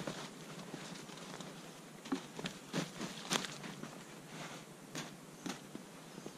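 Snow crunching under boots and knees, with a heavy fabric sheet rustling and scraping as it is spread on the ground: an irregular run of crunches, the strongest in the middle of the stretch.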